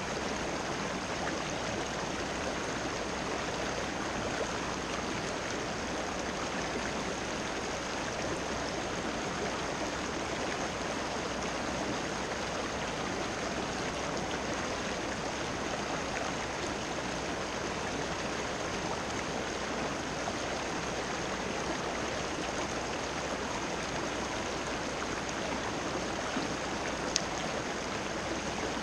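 River water running fast over rocks in a shallow riffle, a steady rushing with no change in level.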